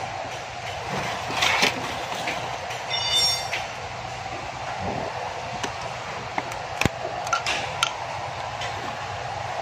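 Steady background hum with a few light clicks and taps of small parts and tools being handled, and a short high metallic ring about three seconds in.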